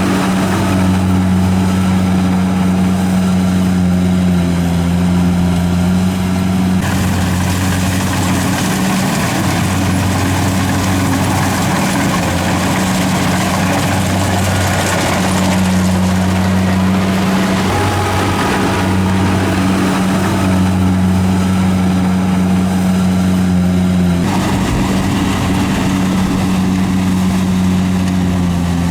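Engine of a rice harvesting machine running steadily at a constant speed, with a deep hum and mechanical clatter over it. Its tone shifts abruptly about seven seconds in and again near the end.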